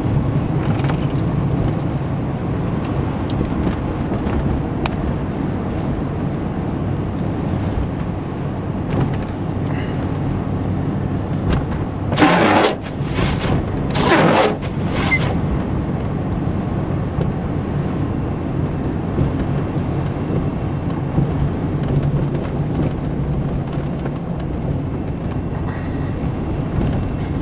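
Steady vehicle engine and road noise heard from inside the cab, a low continuous rumble, with two brief louder noises about halfway through.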